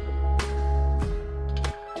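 Background music with a steady beat, a strong bass line and held tones; the bass drops out briefly near the end.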